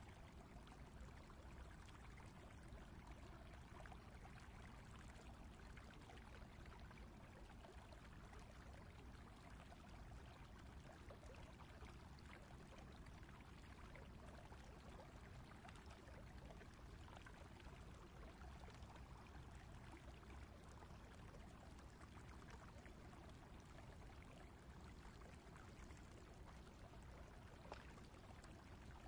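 Faint, steady rush of flowing stream water.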